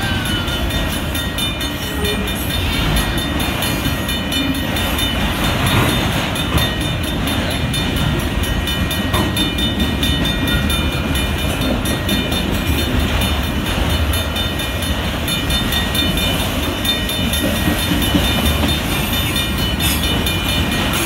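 Freight train of autorack cars rolling steadily past at a grade crossing: a continuous rumble of steel wheels on rail, with a few steady high-pitched tones over it.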